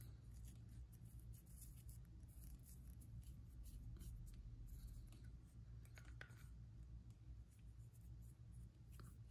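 Near silence over a steady low hum, with faint scratches and small ticks of a paintbrush working wash into the textured surface of a sculpted figure.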